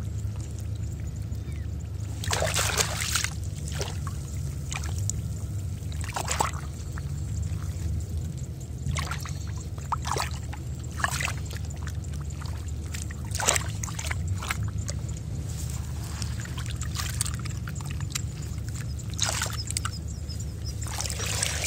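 Shallow muddy paddy water sloshing and splashing as hands and a bamboo basket scoop through it for small fish, in irregular splashes and trickles. A steady low rumble runs underneath.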